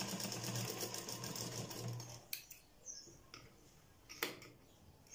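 Straight-stitch sewing machine running a seam along the edge of a cotton fabric piece for about two seconds, then stopping. A few sharp clicks follow.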